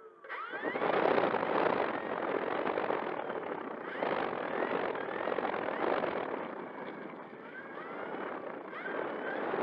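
Electric brushless motor of an RC model airplane spinning up about half a second in with a brief rising whine, then the propeller running steadily as the plane taxis, heard close from the nose with heavy rushing prop wash over the microphone.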